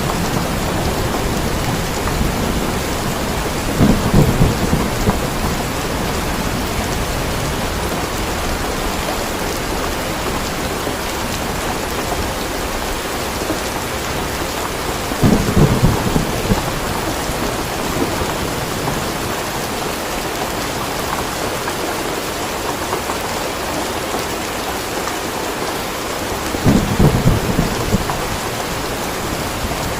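Steady heavy rain, with three short low rumbles of thunder at even spacing, about eleven seconds apart.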